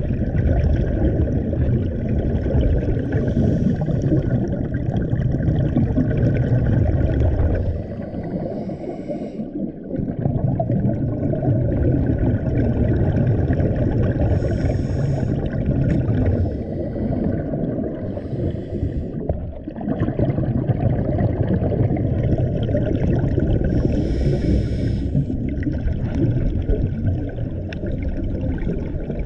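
Scuba diver breathing through a regulator, heard underwater: long spells of low bubbling from exhaled air, broken by short hisses of inhalation about halfway through and again near the end.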